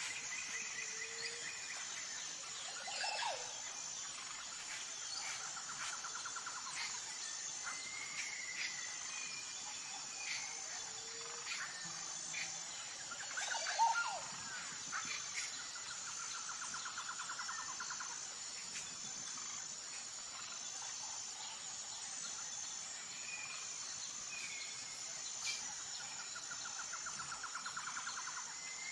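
Outdoor ambience: a steady, evenly pulsed high insect drone with birds chirping and trilling now and then, one call louder about halfway through.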